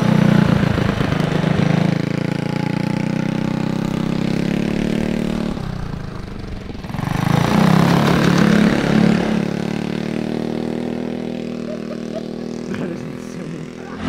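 Tillotson 212 single-cylinder four-stroke go-kart engine running under way, its revs rising and falling, dropping off about six seconds in and picking up again a second later.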